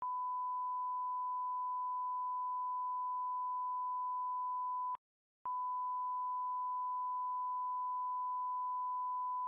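A steady, pure electronic beep tone held at one pitch. It cuts off for about half a second near the middle, then starts again.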